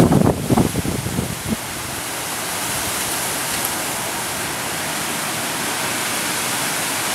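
Steady hiss of a rain shower ahead of a thunderstorm, slowly growing louder. In the first second and a half there is a loud, uneven low rumble.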